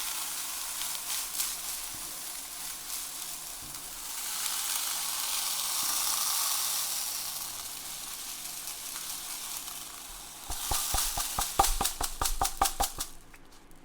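Desiccant beads pouring through a 3D-printed plastic funnel into a container: a steady hissing trickle that swells in the middle. About ten seconds in it gives way to a quick run of clicks and rattles.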